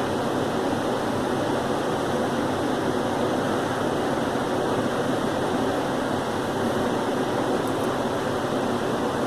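Steady, unbroken rushing noise at an even level, strongest in the lower middle range, with no coughs or other sudden sounds.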